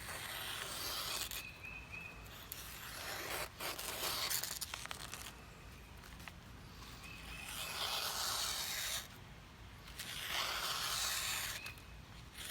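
Small stainless steel blade of a Swiss Army knife drawn across a diamond sharpening stone: about five gritty scraping strokes, each a second or two long, with short pauses between.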